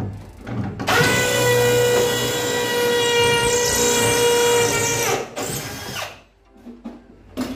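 Electric drill running at steady speed for about four seconds, starting about a second in, its motor giving a steady whine; a shorter burst from the drill follows.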